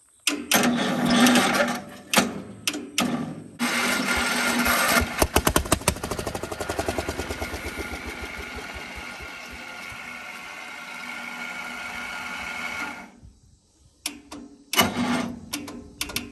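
Small single-cylinder garden tractor engine being cranked by its electric starter, turning over in a fast, even rhythm for about eight seconds without catching, growing fainter before it stops, with a few clicks afterwards. The weak cranking is the sign of a low battery, which the owners go on to jump-start.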